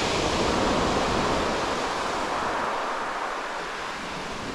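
Sea waves washing onto a shingle beach, one surge swelling early and slowly dying away.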